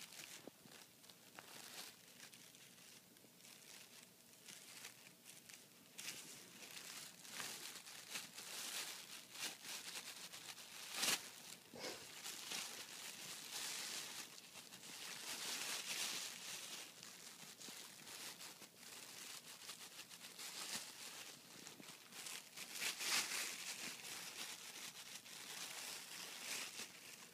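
Thin plastic carrier bag crinkling and rustling on and off as a cat shifts and paws in it, the loudest rustles about eleven seconds in and again a little after twenty-three seconds.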